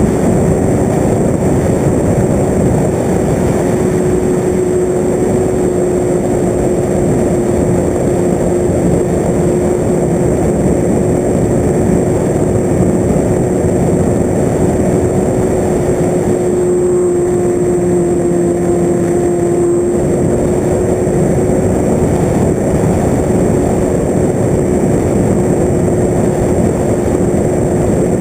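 Radio-controlled FPV aircraft's motor and propeller running steadily under a heavy rush of wind noise, with one steady hum whose pitch sags a little about two-thirds of the way through.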